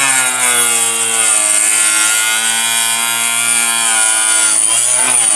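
Harbor Freight 2-inch mini cut-off saw running with a high motor whine while its blade cuts into an epoxy resin rod; the pitch sags as the blade bites under load and picks back up, dipping again about five seconds in.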